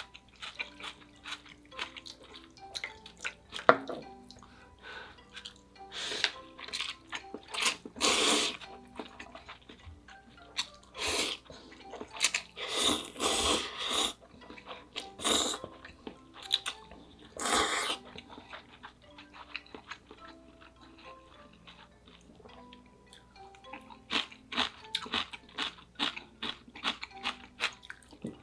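Close-miked eating of spicy ramyeon noodles: several loud slurps of noodles and broth, the longest about halfway through, among wet chewing and small clicks of utensils. Soft background music plays throughout.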